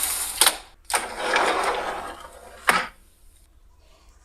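Slide transition sound effects played back. A sliding sound ends in a sharp click about half a second in. A second slide of nearly two seconds follows and also ends in a click.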